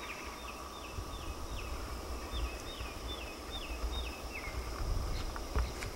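A bird singing two runs of short notes, each note sliding down in pitch, about two or three a second; the song stops a little past the midpoint.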